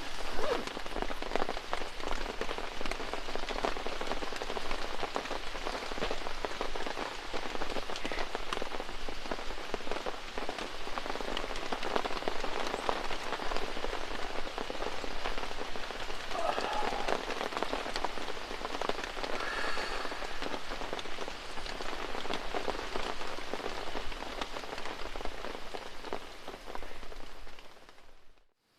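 Steady rain falling, a dense patter of many small drops. It cuts off abruptly just before the end.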